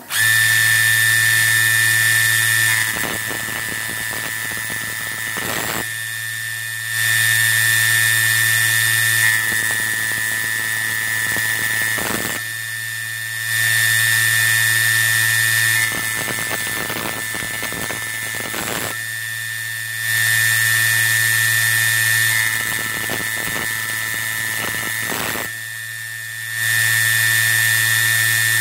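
Small slitting saw on a home-built CNC lathe cutting brass bar stock, a steady high whine that grows louder for about two seconds roughly every six and a half seconds, five times. These are the passes that mill the hexagon flats on the end of the part. Between passes there are brief sweeping motor sounds as the machine moves and the spindle indexes to the next flat.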